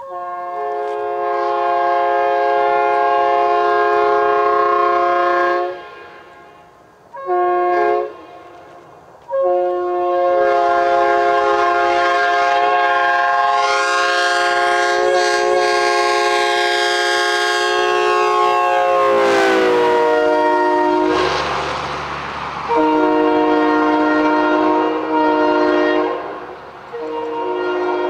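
Leslie RS3K three-chime locomotive air horn blowing a series of blasts: a long one, a short one, then a very long one. About two-thirds of the way through, the chord's pitch drops as the train passes, and the noise of the passing train comes up under the horn. The horn keeps sounding in short blasts at the lower pitch near the end.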